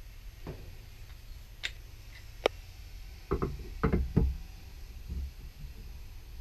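Scattered knocks and sharp clicks, with a cluster of louder knocks about three to four seconds in.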